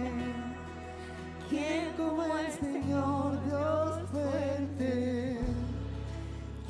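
Christian worship song: a voice sings long notes with vibrato over sustained low chords, which change twice.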